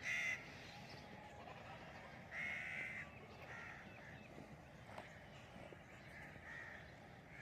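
A bird calling several times over a steady low background: a short loud call at the start, a longer one about two and a half seconds in, and fainter calls after.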